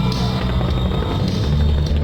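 Loud music with deep, held bass notes, the soundtrack of a fireworks display, with a brief fizzing hiss of fireworks right at the start.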